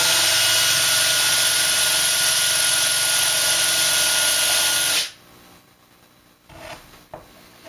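A small handheld electric power tool, such as a drill, spins up with a short rising whine, runs steadily at speed for about five seconds, then stops suddenly. Faint handling noises follow.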